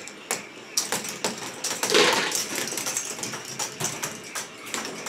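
K'nex ball machine running: plastic balls clicking and clattering along the plastic tracks and rods in many small, irregular ticks, with a louder rattling rush about two seconds in.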